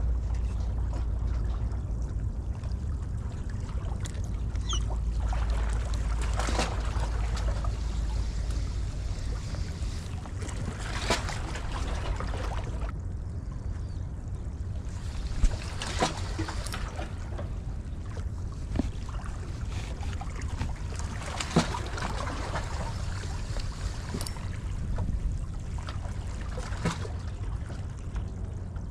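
Sea water washing and trickling against breakwater rocks, with wind rumbling on the microphone, strongest in the first third. A few sharp clicks stand out, the loudest about halfway through and again about two-thirds in.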